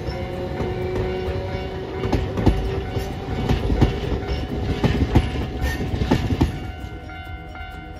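Hiroden 3950-series 'Green Liner' articulated tram passing at low speed, its wheels clacking irregularly over rail joints and points with a steady rumble, the clicks loudest in the middle. The tram sound fades near the end as background music comes in.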